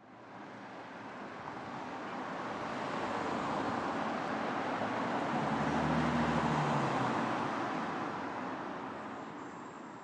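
A road vehicle driving past on a street: its tyre and engine noise builds steadily, peaks about six seconds in with a low engine hum, and then fades away.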